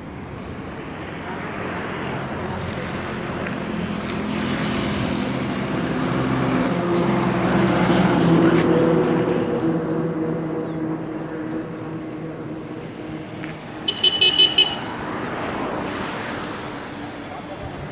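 Road traffic: a motor vehicle's engine hum grows louder, peaks about eight seconds in and fades as it passes. About fourteen seconds in, a vehicle horn gives a short, stuttering honk.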